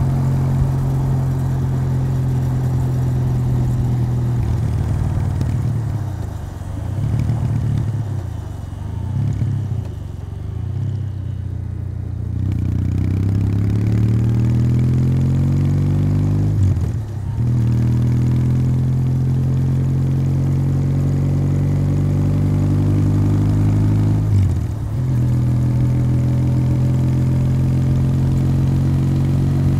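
Kawasaki W800's air-cooled parallel-twin engine through its stock exhaust, heard while riding. It cruises steadily, then eases off with the note dipping and wavering for several seconds. It then pulls again, the pitch rising, with two brief breaks where it drops and climbs again, typical of upshifts, before settling into a steady cruise.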